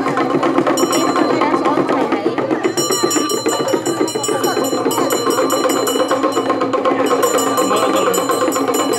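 Fast, continuous beating on percussion with metal bells ringing over it, a dense steady rhythm of ritual music. The bell ringing grows stronger about three seconds in.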